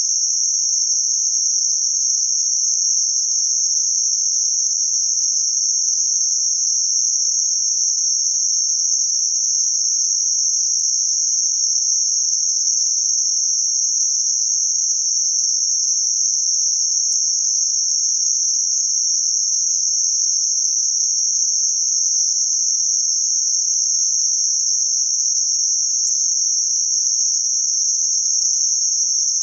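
Steady synthetic noise confined to a narrow band centred around 6051 Hz: an even, high-pitched hiss with no rhythm and no change in level.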